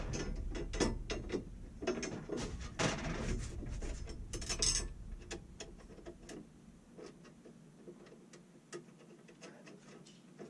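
Ratchet clicking in quick runs, mixed with knocks and handling noises from work on the dehumidifier's hangers. The clicks are dense for the first few seconds, then thin out to scattered clicks.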